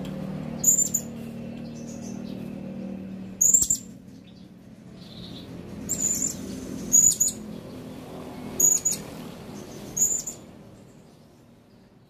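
Male blue-crowned hanging parrot (serindit) calling: six short, shrill, very high-pitched calls, spaced one to three seconds apart. Under them runs a steady low hum that fades out near the end.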